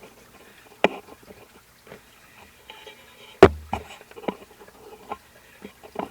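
Handling noises at a router table: a few sharp knocks and small clicks as wooden and metal parts are picked up and set down, the loudest knock, with a short dull thud, about three and a half seconds in.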